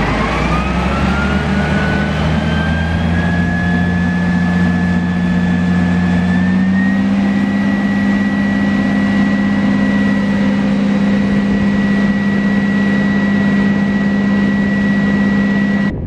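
Case IH combine's diesel engine running up to full throttle: a whine climbs over the first several seconds, then holds at one high pitch over a heavy engine drone. The sound cuts off suddenly at the end.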